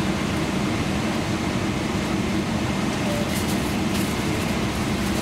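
Steady low hum inside a Boeing 777-300ER airliner cabin during pushback from the gate, with a few faint high ticks about three seconds in.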